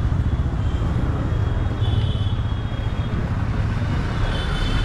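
Busy street traffic heard from a moving motorcycle: a steady low rumble of engines and road noise.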